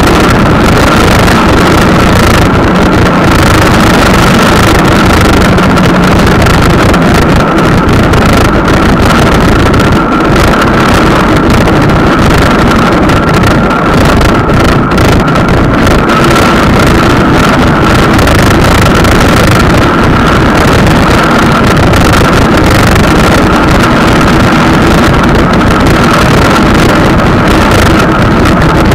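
Wind rushing over the microphone mixed with the constant drone of the moving vehicle that carries the camera, with a steady whine above it.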